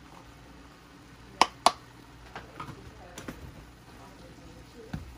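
Two sharp knocks about a second and a half in, then lighter scattered clicks and scrapes from a wooden spoon stirring sliced mushrooms and beef in a stainless steel skillet.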